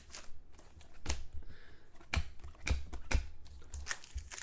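Stiff chrome trading cards being handled and flipped through, giving about half a dozen irregular sharp clicks and taps.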